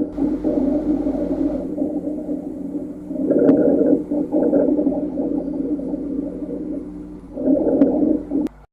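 Rhonchi heard through a stethoscope: continuous low-pitched, snoring breath sounds that swell louder twice, about four seconds apart. They are the sign of mucus obstructing the airways, as in pneumonia, chronic bronchitis, cystic fibrosis or COPD.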